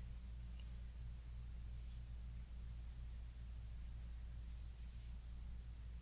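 Pencil sketching on paper: a run of short, faint scratchy strokes, over a steady low hum.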